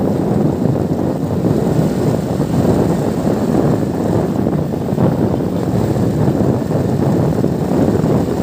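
Steady, loud wind rumble buffeting a cellphone microphone on a moving motorcycle, mixed with the motorcycle's running and road noise.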